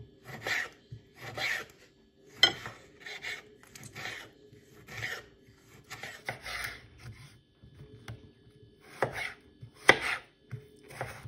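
Kitchen knife cutting a tomato into cubes on a wooden cutting board: short slicing strokes, each ending in a tap of the blade on the board, about one a second, with a pause about two-thirds of the way through. Near the end the knife cuts a cucumber, with the sharpest taps.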